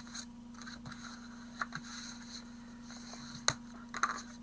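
Pearlised card being folded concertina-style along its score lines: quiet rustling and creasing, with a few small clicks and one sharp click about three and a half seconds in. A steady electrical hum runs underneath.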